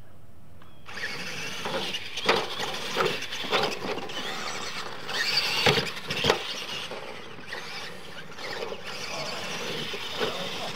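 Electric Tamiya Clod Buster–style RC monster trucks racing on dirt, starting about a second in: motors and gears whining and tyres churning dirt. Several sharp knocks between about two and six seconds in, as the trucks land off the ramps.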